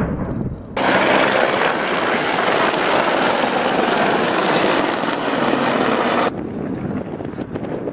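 Mi-24 attack helicopter flying past, its rotor and twin turbine engines making a loud steady rush. The sound starts abruptly about a second in and drops sharply about six seconds in.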